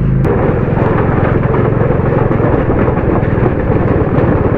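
Motorcycle riding over a wooden-plank bridge: the engine running under a dense rumble and clatter from the tyres on the boards.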